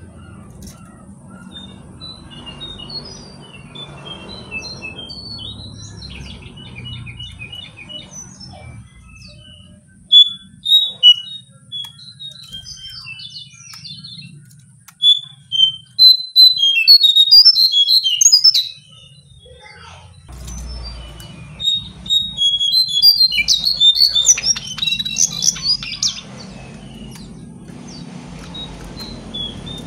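Caged jongkangan songbird singing its call, rendered as "king kung kang king": scattered chirps, then loud runs of quick notes about ten seconds in, again from about 15 to 18 seconds, and again from about 22 to 26 seconds.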